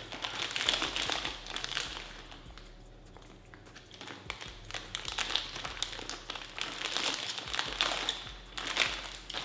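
Irregular crinkling and rustling, dense with small crackles and clicks, in two busy spells with a quieter stretch in the middle.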